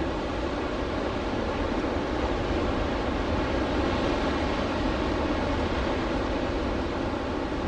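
Steady outdoor waterside ambience: a continuous low rumble with a rushing hiss over it, and no distinct events.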